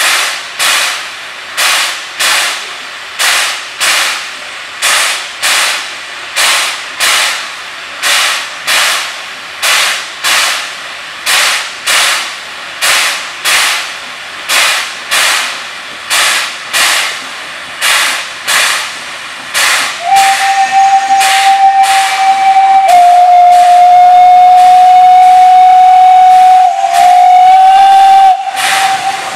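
Streamlined steam locomotive 242 001 working steam as it approaches, its exhaust beating in a slow, even rhythm of about one and a half chuffs a second. About twenty seconds in, a loud multi-tone steam whistle sounds for some eight seconds, sagging slightly in pitch in the middle before it stops.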